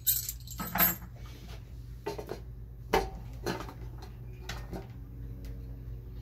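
Small metal parts and hand tools clinking and clattering on a workbench: a few sharp clinks in the first second and around three seconds in, then lighter scattered taps.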